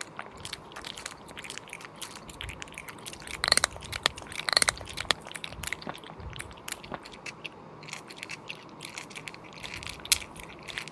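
Close-miked chewing and biting of cooked sheep's head: a steady run of wet clicks and crunches, with louder crackly crunches about three and a half seconds in and again a second later.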